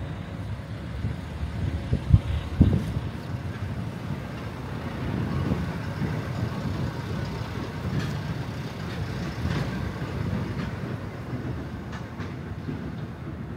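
Wind buffeting the camera's microphone: an uneven low rumble that swells and fades, with two sharp thumps about two seconds in.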